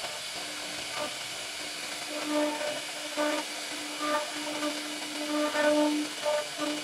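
CNC router spindle running as its cutter carves into a wooden door panel: a steady hiss with a humming tone that swells and fades again and again as the bit bites into the wood.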